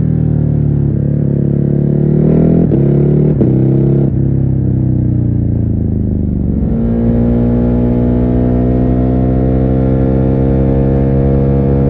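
Stock Ducati Hypermotard 950's L-twin engine under way, heard muffled from a phone inside the rider's backpack. The pitch climbs with a few sharp clicks, sinks slowly, and from a little over halfway through holds steady at higher revs.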